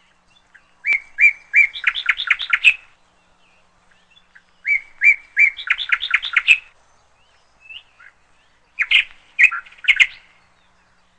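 A songbird singing three short phrases a few seconds apart, each a run of quick repeated chirping notes.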